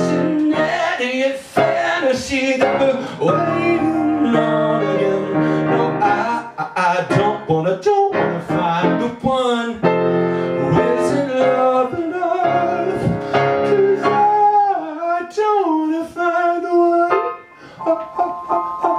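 Piano playing an instrumental passage of chords and runs, the accompaniment carrying on without lyrics after the sung refrain.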